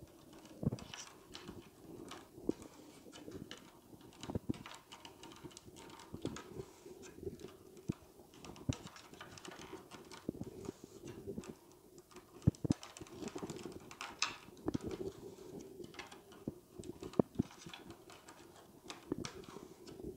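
Rolled paper tubes being woven around the spokes of a round plywood weaving board: irregular light clicks, taps and rustles as the tube is pushed through and pressed down against the wood, with a couple of sharper knocks in the second half.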